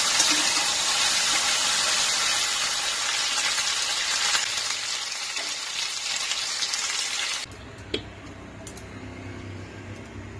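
Marinated chicken pieces sizzling in hot mustard oil in a kadai as they are lightly fried and stirred with a spatula. The sizzle cuts off suddenly about seven seconds in, leaving a faint low hum and a single click.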